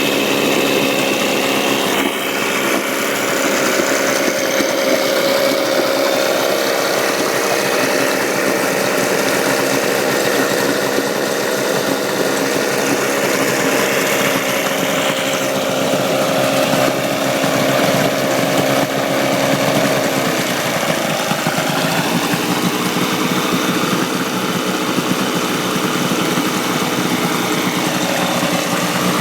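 9.9 hp Evinrude two-cylinder two-stroke outboard motor running on a stand with its cover off. It runs steadily, with its pitch dipping and rising again about twenty seconds in.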